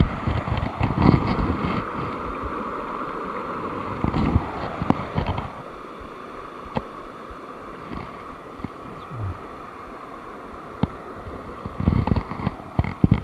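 River water flowing steadily, with bursts of low rumble in the first few seconds and again near the end.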